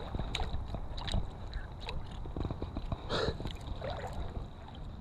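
Wind buffeting the camera microphone with a steady low rumble, under scattered light clicks and a short rustle a little after three seconds.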